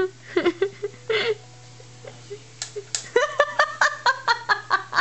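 A quick run of short, high-pitched laughs, about five a second, starting about three seconds in, after a few soft clicks and small sounds.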